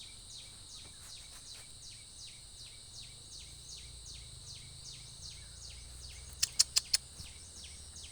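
Wild outdoor chorus: a steady high buzz with a short falling chirp repeated about two and a half times a second, typical of insects. Near the end, four sharp clicks come in quick succession and stand out above it.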